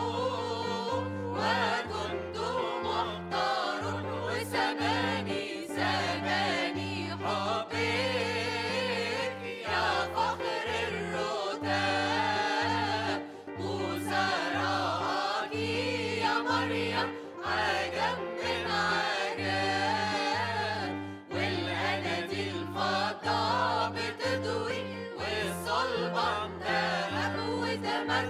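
Church choir of women's and men's voices singing a hymn together, over an instrumental accompaniment with a steady bass line that changes note about once a second.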